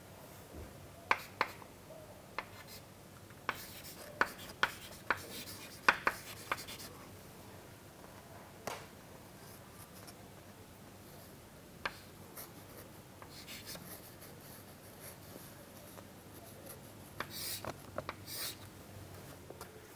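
Chalk writing on a chalkboard: sharp taps and short scratching strokes at irregular intervals, with a few longer scrapes near the end.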